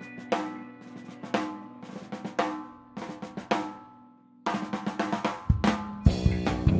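Live punk rock band opening a song: a distorted electric guitar chord rings under single drum and cymbal hits about once a second, then a drum fill just past four seconds brings in the full band with bass and kick drum near the end.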